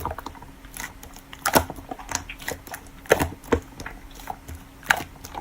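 Slime being pressed and played with by hand, making several sharp crackling clicks at irregular spacing, over a faint steady hum.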